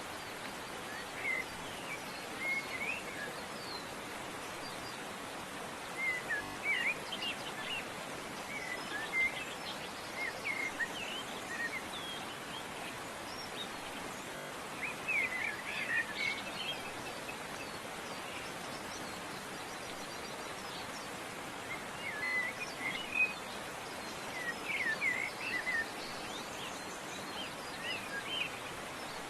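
Birds chirping and trilling in short spells of song every few seconds over a steady background hiss.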